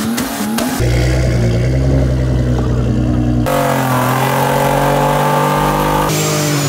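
Car engines held at high, steady revs during burnouts, tyres spinning, the sound changing abruptly about a second in, again past three seconds and again after six seconds as one burnout gives way to the next; the later part is a lifted pickup truck spinning its rear tyres in smoke.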